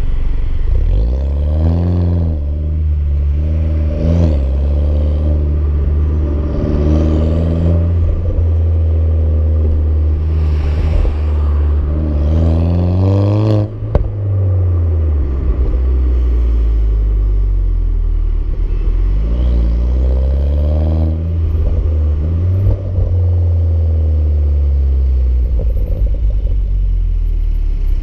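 BMW F20 116i's engine heard through a Supersprint aftermarket exhaust while driving, its pitch climbing and falling again several times as it accelerates and eases off, over a deep rumble. The pitch cuts off sharply about halfway through.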